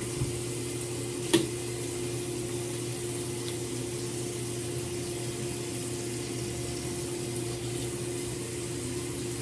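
Bathroom sink tap running steadily, with one sharp click about a second and a half in.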